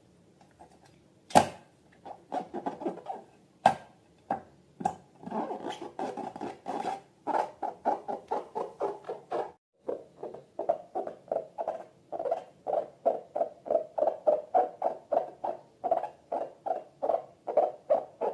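Slime being squeezed and kneaded by hand: a run of short wet squelches, about two or three a second, with a few sharp clicks in the first few seconds.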